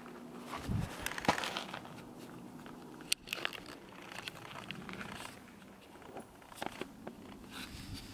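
Irregular crunches and crackles of boots stepping on thin snow, with a dull thump under a second in.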